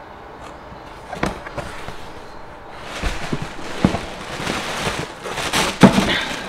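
A cardboard box being handled and opened, then a plastic-wrapped item pulled out, its plastic bag crackling and crinkling, with sharp knocks of cardboard in among it, the loudest shortly before the end.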